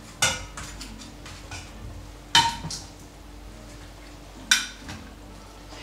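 A cooking utensil clinking against the pan three times, about two seconds apart, as raw shrimps are set one by one into the sauce.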